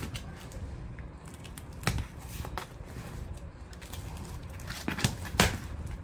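Cardboard shipping box being opened by hand: the packing tape is cut and the flaps are pulled open, giving scattered cardboard crackles and a few sharper scrapes and thumps about two seconds in and near the end.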